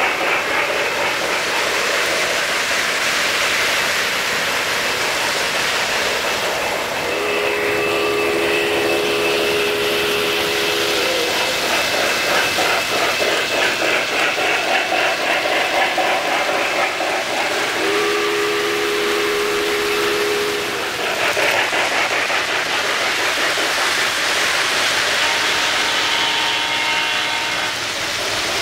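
O-scale three-rail model steam locomotive's sound system: a steady steam hiss and chuff with wheels rolling on the track, and two steam-whistle blasts of a few seconds each, about seven seconds in and again about eighteen seconds in.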